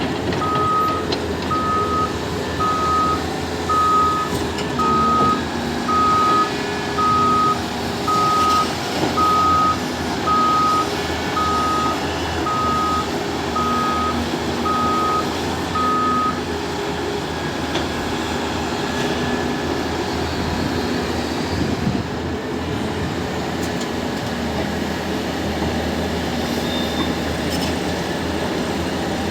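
Reversing alarm on a Volvo 460 tipper truck beeping steadily, about once a second, over the diesel engine running as the truck backs up; the beeping stops about two-thirds of the way in and the engine runs on.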